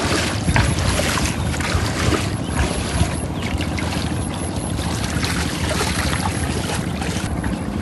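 Water splashing and sloshing, with many short irregular splashes over a continuous wash of water noise.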